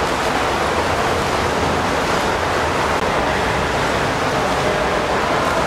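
Steady rushing water noise of swimmers splashing along the lanes of a pool.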